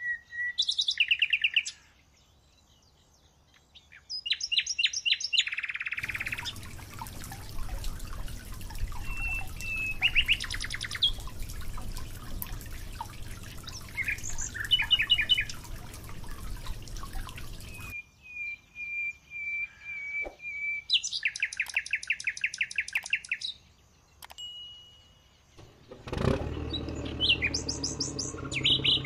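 Birds chirping in short repeated trills. In the middle of the stretch, water pours steadily from the tanker into the trough for about twelve seconds. Near the end, an engine starts up and runs steadily.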